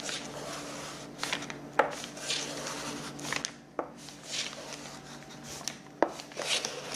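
Large kitchen knife scraped in repeated pulling strokes across a dark chocolate bar, shaving off curls, with a few sharp clicks of the blade against the bar.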